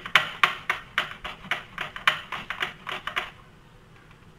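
Boiled raw banana being grated on a flat stainless steel hand grater: quick rasping strokes of the soft banana across the metal blades, about four a second, stopping a little after three seconds in.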